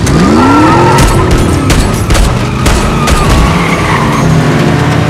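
Car engine revving up hard as the accelerator is floored, its pitch climbing through the first second, with a long high tyre squeal of spinning wheels that fades out near the end. A few sharp knocks sound along with it.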